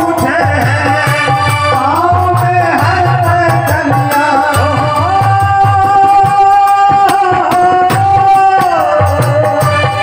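Hindi devotional wedding song for Ram played loud through a stage loudspeaker system: a sung melody over a steady drum beat, with one long held note through the middle that slides down near the end.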